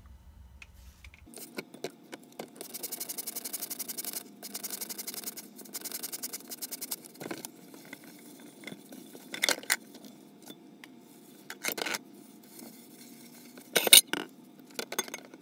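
A crock pot being scrubbed by hand with dish soap: fast, even back-and-forth strokes for about four seconds, then a few sharp clinks and knocks of dishware, the loudest near the end.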